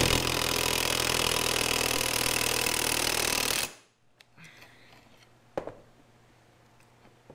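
Cordless impact wrench hammering for about three and a half seconds as it tightens the pinion nut on a Ford 8.8 differential, crushing the crush washer to take up pinion bearing play. A single knock follows a couple of seconds later.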